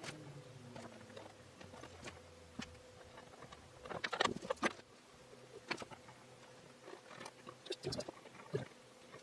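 Small metal hinges being handled and set down on a wooden box lid while a pencil marks around them: scattered light taps and clicks, with a cluster of them about four seconds in and again near the end.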